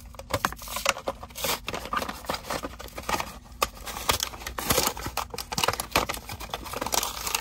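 Cardboard-and-plastic blister pack of a diecast toy car being torn open by hand: irregular tearing, crackling and crinkling of card and plastic.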